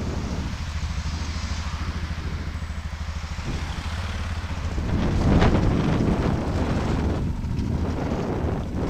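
Wind buffeting the microphone of a camera riding along on a bicycle, over a steady low rumble and fine rattling from the ride; it grows louder about five seconds in.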